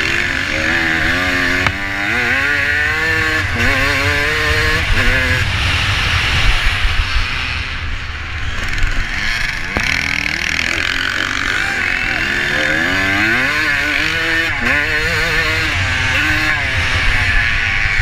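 Vintage motocross bike's engine heard from on board, revving up through the gears in repeated rising sweeps, easing off through the middle as it takes a corner and pulling hard again in the second half.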